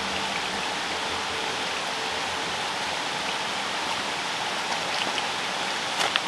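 A river running over small cascades: a steady rush of water. A few sharp clicks come near the end.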